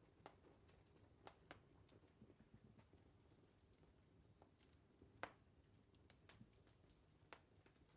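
Faint, irregular crackles and pops of a wood fire burning, over a low steady hum of room tone.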